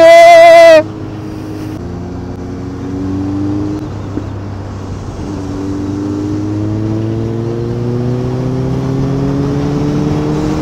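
A loud drawn-out shout, about a second long, at the start. Then a Kawasaki Z900's inline-four engine accelerating hard under wind noise: its pitch rises, drops at a gearshift about four seconds in, then climbs steadily through the next gear.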